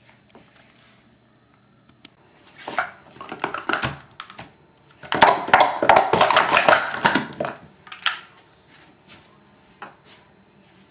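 Plastic sport-stacking cups clattering in rapid runs of clicks as they are stacked up into three pyramids and brought back down in a 3-3-3 sequence, the densest run in the middle, followed by a few scattered single clicks of cups.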